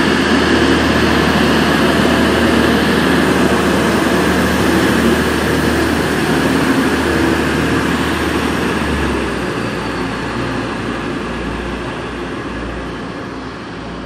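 TransPennine Express Class 185 diesel multiple unit pulling away under power, its diesel engines running loudly and steadily. The sound fades from about two-thirds of the way through as the train draws away.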